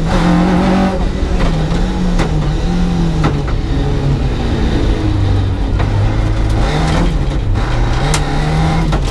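Historic rally car's engine heard from inside the cabin as it changes down from fourth to first gear for a tight turn. The engine note wavers and drops in pitch through the middle, then rises again as the car pulls away in first. A few sharp clicks sound over the engine.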